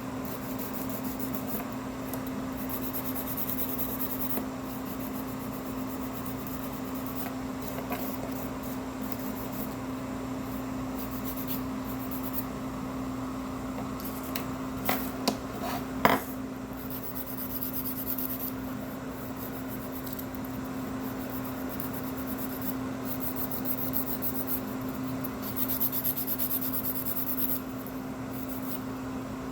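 Hand nail file or buffer rubbing back and forth across fingernail tips in short stretches of strokes, with a few sharp taps about halfway through. A steady low hum runs underneath.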